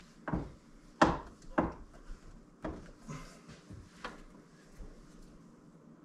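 Metal clunks and knocks from a hand-operated sheet-metal folding brake as a thin steel plate is clamped and folded. There are about five sharp knocks over the first four seconds, the loudest about a second in.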